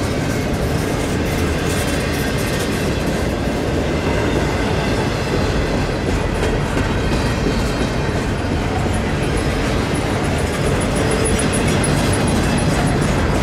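Double-stack intermodal freight train's well cars rolling past close by: a steady rumble and clatter of steel wheels on the rails. A faint, high, pulsing wheel squeal comes in over the last few seconds.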